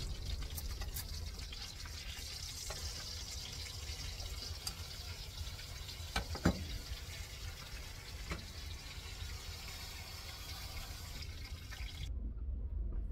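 Sausages and bacon sizzling in a frying pan, a steady hiss that cuts off suddenly near the end. A few sharp metal clinks of tongs and pans, the loudest about halfway through.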